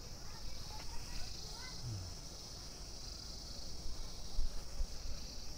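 Steady, high-pitched chorus of insects trilling in the orchard.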